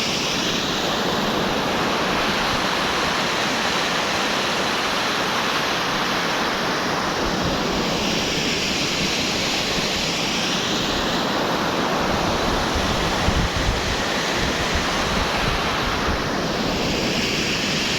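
Floodwater rushing down a swollen seasonal stream after heavy rain: a steady, loud rush of water, with wind buffeting the microphone.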